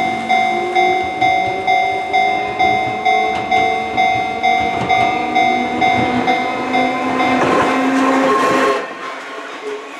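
Railway level-crossing bell dinging about twice a second. An Enoden electric train then comes through with a rising rumble and wheel noise, and the sound drops abruptly near the end.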